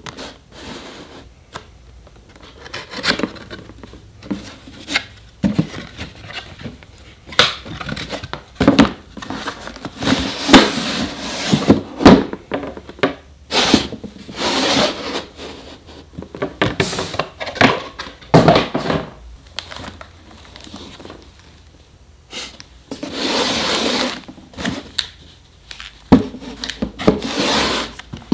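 Hands handling cardboard camera boxes and packaging: irregular rubbing, scraping and sliding, with sharp taps and knocks as the boxes are opened, moved and set down.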